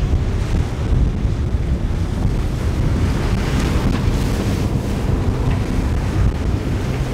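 Strong wind buffeting the microphone over surf and breaking waves, with an outboard-powered center-console boat running through the swells underneath. A brighter rush of water and spray swells up about three to five seconds in.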